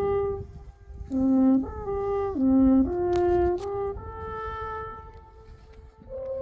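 Alphorn playing a slow tune of held notes that step up and down, the last one sustained for about two seconds.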